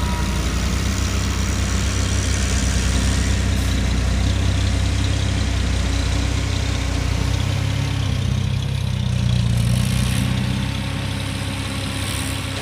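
Hino dump truck's diesel engine working hard as the truck climbs a steep dirt ramp out of a pit. The engine note rises about two-thirds of the way through, then drops and gets a little quieter near the end.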